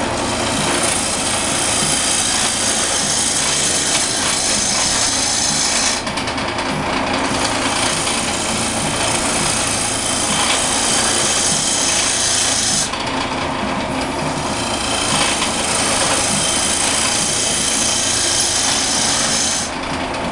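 Wood lathe running steadily while a turning tool cuts the spinning walking cane shaft down in diameter, a loud rough scraping hiss over the motor hum. The cutting breaks off briefly about six seconds in and again around thirteen seconds, and stops near the end while the lathe keeps running.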